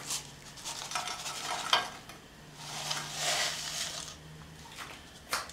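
Baking soda powder poured from a plastic cup into a frying pan, heard as a soft hiss starting about two and a half seconds in and lasting over a second. A few light knocks come before and after it.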